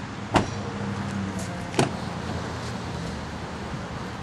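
A pickup's rear door slammed shut with one sharp thump about half a second in, then a second, shorter knock about a second later, over a steady low hum.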